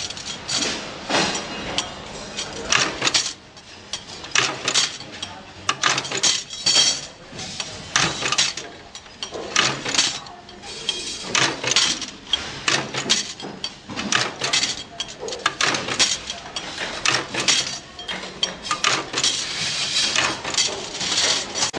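Steel ball-bearing drawer slide rails clinking and clanking against each other and against a small bench press as they are assembled, a quick irregular run of sharp metallic knocks.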